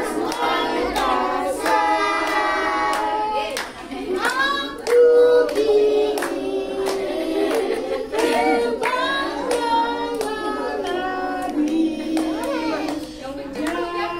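A group of young children singing a birthday song together, with hands clapping along in a steady beat of about two claps a second.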